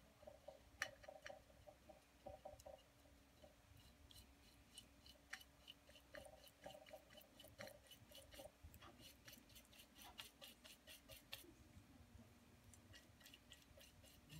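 Faint scratchy ticking of a small paintbrush scrubbing glaze into the doily-textured surface of a bisque-fired plate, in quick runs of strokes.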